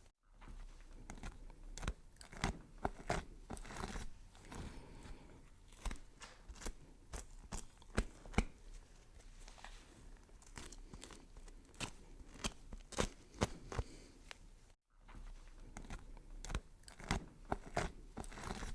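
Vegetables being chopped with a knife: irregular sharp chops, several a second. The chopping breaks off for a moment about fifteen seconds in.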